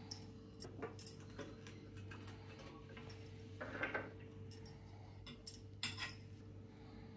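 Light clinks and taps on a stainless steel plate as cucumber slices and carrot pieces are set down on it, with a short scrape about four seconds in and a sharper clink about six seconds in.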